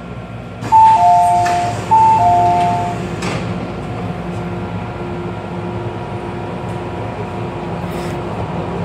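MTR M-train door chime: a two-note high-then-low chime sounding twice as the saloon doors slide open, followed by a low on-off beeping over the stopped train's steady hum.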